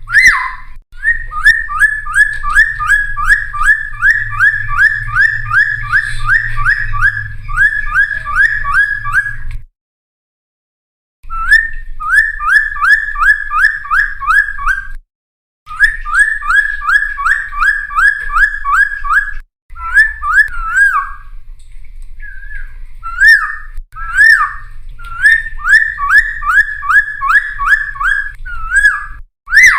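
Cucak timor singing in long, fast runs of sharp whistled notes repeated about three a second, broken by short pauses about ten and fifteen seconds in, with a low hum underneath.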